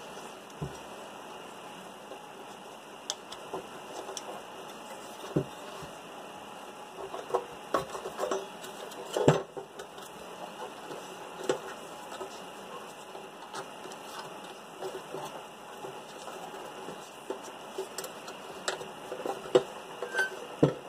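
Scattered clicks and knocks of hard plastic being handled: a stock truck fog light and its plastic mounting bracket, worked by hand as the bracket's clip mounts are pressed in to release the light. The loudest knock comes about halfway through, over a steady low hiss.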